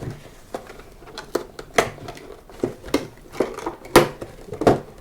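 Doll packaging being worked open by hand: irregular clicks, crackles and snaps of stiff plastic and cardboard, with the two sharpest snaps near the end.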